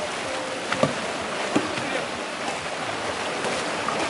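Steady rush of fast-flowing river water, with a couple of short sharp knocks about a second in and again half a second later.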